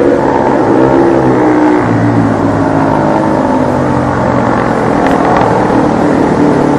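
A motor engine running steadily, its pitch drifting slowly up and down.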